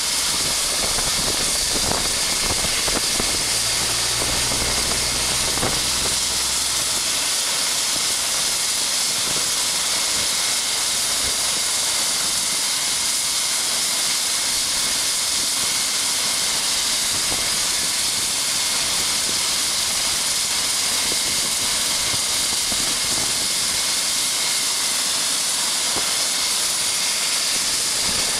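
AgustaWestland AW119 Koala's single turboshaft engine running steadily on the ground: an even, high turbine hiss and whine. A low hum joins it from about three to seven seconds in.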